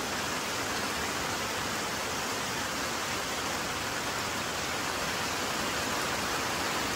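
Steady rain pouring down: an even hiss with no let-up.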